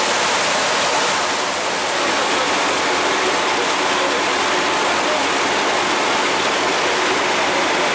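Steady rushing noise of a dive boat under way: water and wind rushing past the open deck, with a faint engine hum beneath.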